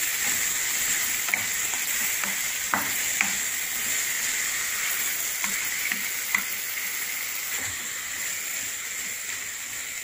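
Raw chicken pieces sizzling in hot oil and spice masala in a pan while a wooden spatula stirs them. The spatula knocks lightly against the pan now and then, and the sizzle grows gradually quieter.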